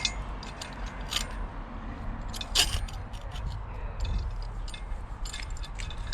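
Scattered small metallic clicks and clinks of metal tools and clamps being handled, with one sharper knock about two and a half seconds in, over a steady low rumble.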